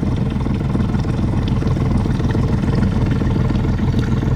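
Boat engine running steadily at low, canal-cruising speed, a constant low hum.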